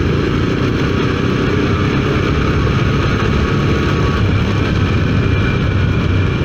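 Motorcycle engine running steadily while riding along a road, a continuous even rumble.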